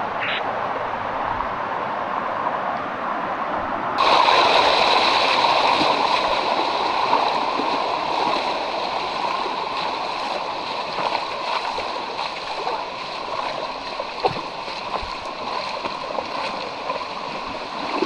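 Waterfall water running and splashing over rocks in a steady rush; about four seconds in it suddenly becomes louder and brighter.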